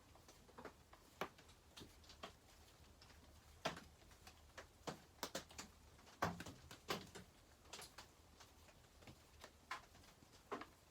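Irregular light clicks and taps of hand tools and small metal parts being fitted and fastened on a chainsaw during reassembly, a dozen or so scattered hits, the loudest a pair about two-thirds of the way through.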